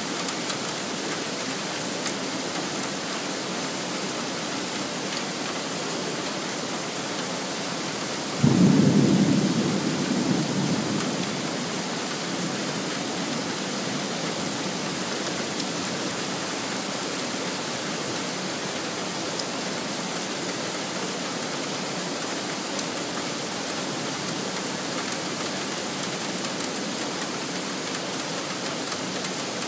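Heavy rain falling steadily, with a sudden loud clap of thunder about eight seconds in that dies away over about three seconds.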